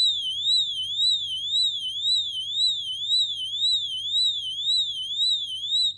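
Tuya Wi-Fi water leak sensor's built-in alarm sounding after detecting water: a loud, high-pitched electronic warble sweeping up and down about twice a second. It cuts off suddenly near the end.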